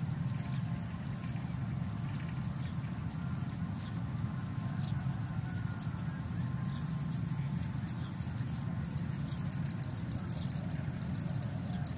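Open-field ambience: a steady low rumble with faint, thin, high chirping throughout, and a quick run of chirps, about five a second, in the middle.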